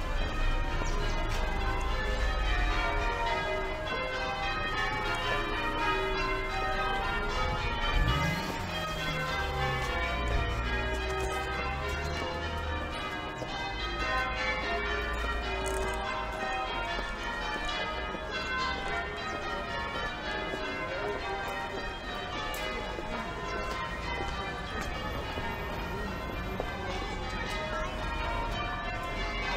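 Church bells ringing changes: a continuous run of bell strikes at many pitches following one another in changing order.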